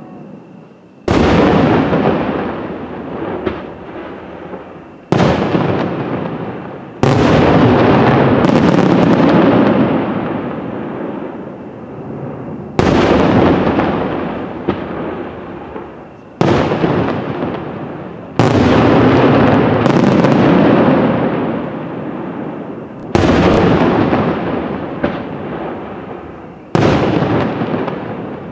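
Aerial fireworks shells bursting in a display: about eight heavy bangs a few seconds apart, each one trailing off in a long rolling echo.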